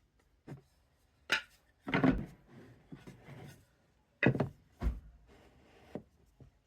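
Wooden workpieces and clamps being handled during a glue-up, knocking against each other and the bench: a scattering of sharp knocks, two of them heavier thumps.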